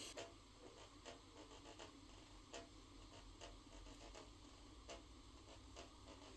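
Near silence broken by faint, irregular clicks, bunched in the first two seconds and then more scattered.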